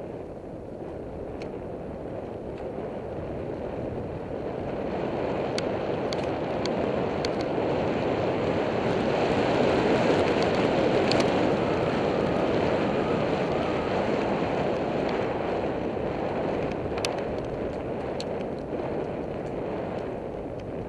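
Wind buffeting the microphone of a camera on a moving bicycle, a steady rushing noise that grows to its loudest about halfway through and eases off again, with a few faint ticks and rattles.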